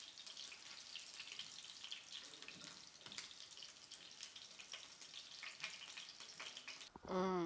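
Fish pieces frying in hot oil in a pan: a faint, steady sizzle with fine crackling. A woman's voice starts just before the end.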